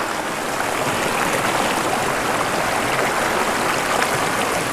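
Small stream flowing steadily, an even rush of water.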